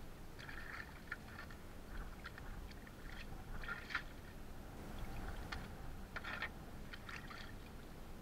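Wet squelching and tearing as the innards are pulled by hand from a bonito on a metal tray, in irregular short bursts with small clicks and scrapes, over a low steady rumble.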